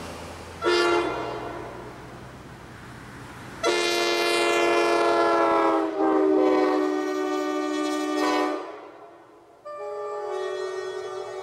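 Multi-chime locomotive air horn sounding a chord in several long blasts, with short breaks between them and the chord shifting slightly from blast to blast.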